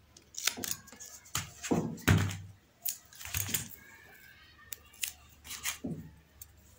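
Double-sided tape and a small LED strip piece being handled on a work mat: scattered clicks, rustles and a few light knocks at uneven intervals.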